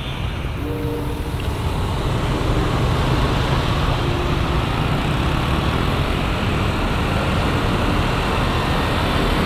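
Motorcycle riding noise through a helmet-mounted camera: engine and traffic mixed with a steady rush of wind on the microphone, growing a little louder over the first couple of seconds as the bike pulls away from a stop and gathers speed.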